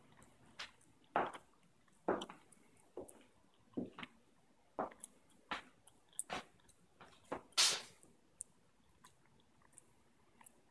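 Footsteps on a tile floor, about one step a little under every second, with a louder, longer scuff about seven and a half seconds in before the steps stop.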